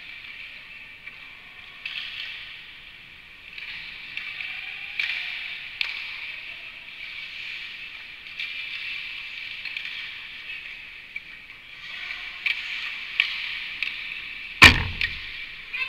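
Ice hockey skate blades scraping and carving on the ice in short spells, with scattered sharp clicks of sticks and puck. Near the end, a single loud bang of an impact against the rink boards close by.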